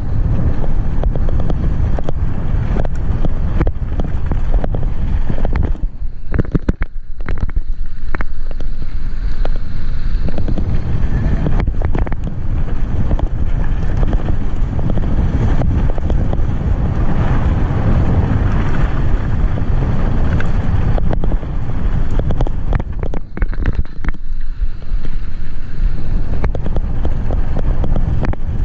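Wind noise on the microphone of a mountain bike riding down a dirt road, with the tyres rumbling over the loose surface and frequent short rattles and knocks from the bike over bumps.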